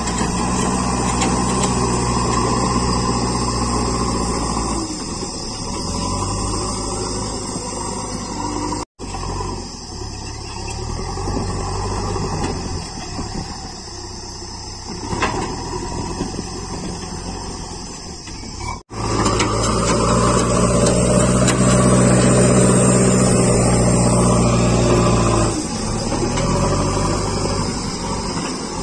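JCB 3DX backhoe loader's diesel engine working under load as the front bucket digs and lifts soil, revving up and easing back again. The sound cuts out sharply for an instant twice.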